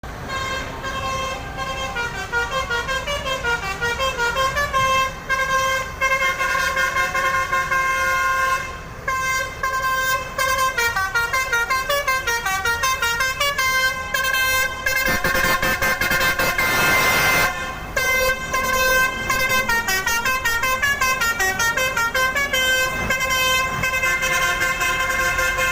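Telolet basuri musical horn on a PT ALS intercity bus playing rapid melodies, runs of notes stepping up and down several times a second, with short breaks between phrases. A hiss lasting about two seconds comes about fifteen seconds in.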